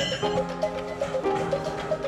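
Background music: held chords that change about a quarter second in and again past the middle, over a steady, quick percussion beat.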